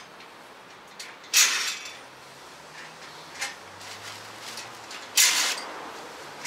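Plastic wrapping on a motorcycle shipping crate being pulled and torn open: two loud rustling rips about four seconds apart, with a few fainter rustles between.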